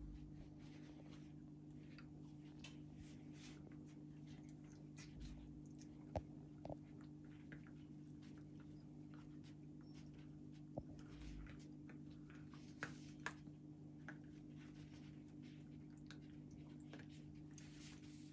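Faint, scattered clicks of a Labrador puppy gnawing a rubber toy, over a steady low hum.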